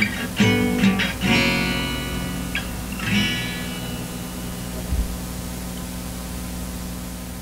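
Guitar music: a few chords struck in quick succession, then a last chord left ringing and slowly fading away.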